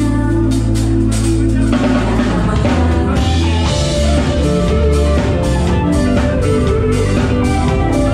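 Live band playing a pop-rock number on drum kit and electric guitar, with the arrangement shifting about two seconds in.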